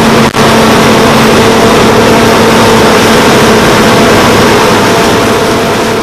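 Claas Lexion 770 combine harvester running close by while harvesting: a loud, steady machine noise from its engine and threshing gear, with a steady hum under it. It drops out briefly about a third of a second in and fades down near the end.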